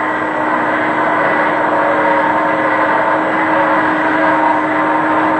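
Brake dynamometer rig spinning a railway wheel fitted with a large disc brake, giving a steady mechanical running noise with a constant low drone.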